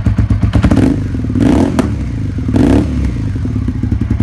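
Suzuki SV650 V-twin motorcycle engine running through an aftermarket exhaust, with a fast pulsing beat. It is revved briefly twice, about one and a half and two and a half seconds in.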